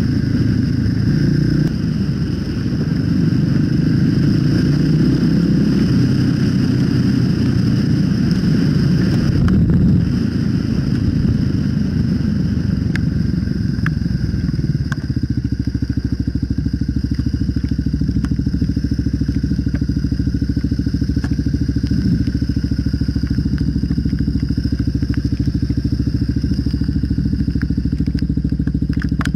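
2008 Kawasaki KLR 650's single-cylinder engine running while riding a dirt road, with road and wind noise. From about halfway it settles into a steady, even idle.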